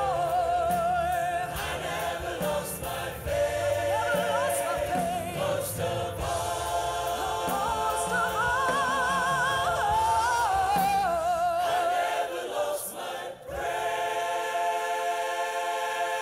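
Gospel choir and a woman soloist singing with instrumental accompaniment; the lead voice sings with a wide vibrato. About thirteen seconds in the sound dips briefly, then gives way to long held notes.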